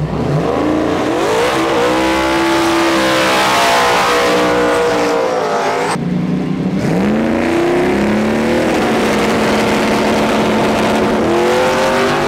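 Turbocharged Hemi V8 of a small-tire Supra drag car revving hard. The pitch climbs and holds high, breaks off abruptly about halfway, then climbs and holds again, with a further rise near the end.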